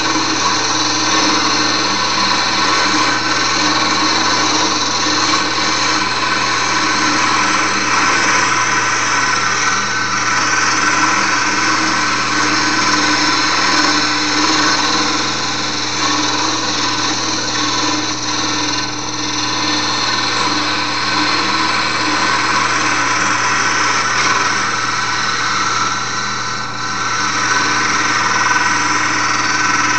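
Wood lathe running steadily, its motor whine mixed with the hiss of a tool working the spinning wooden file handle, easing briefly twice.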